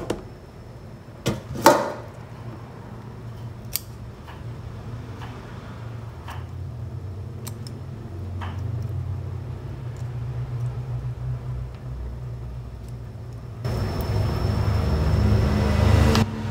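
Kitchen scissors snipping through small round scad, a few sharp clicks in the first four seconds, over a steady low rumble. Near the end a louder rushing noise comes in for about three seconds and stops abruptly.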